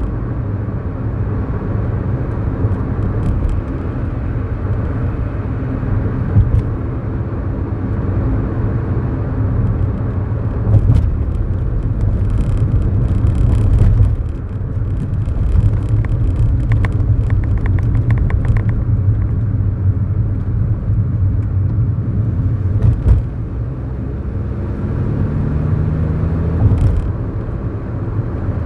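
Inside the cabin of a 2011 Kia New Morning with a 999 cc four-cylinder engine and a manual gearbox, while driving: a steady low engine drone mixed with road and tyre rumble. A few light clicks come through, and the engine note rises a little near the end.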